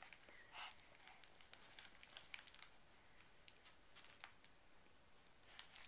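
Near silence with faint scattered clicks and crinkles, a baby handling a soft fabric toy cube.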